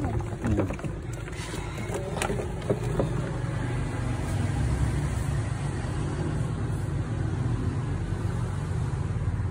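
Steady low rumble of a motor vehicle engine, with a few light clicks in the first three seconds.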